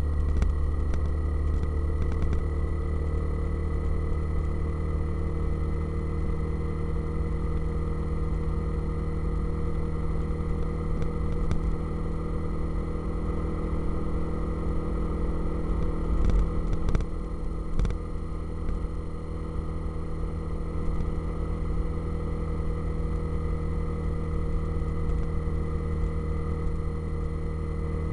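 Motorcycle engine running steadily under way, with a low rumble and an even pitch, and a few brief clicks a little past halfway.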